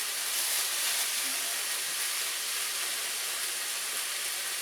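Shaved ribeye steak sizzling steadily as it fries in a hot pan, cooking down in its juices.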